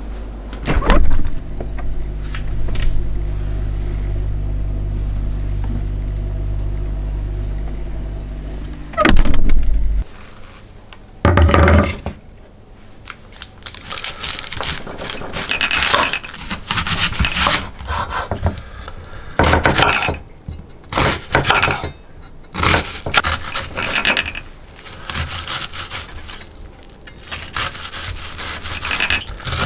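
A steady low hum with a thud near the start and another about nine seconds in, as a refrigerator door is opened and shut. From about fourteen seconds in, a kitchen knife cutting and dicing an onion on a wooden cutting board: a run of irregular chops on the board.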